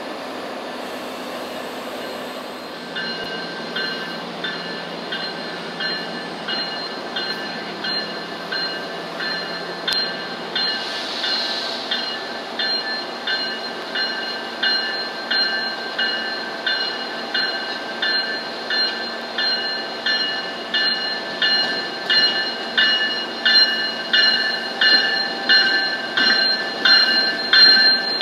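Train bell ringing about once a second on an MBTA commuter rail train as it approaches the platform, growing steadily louder, over a steady rumble of rail noise.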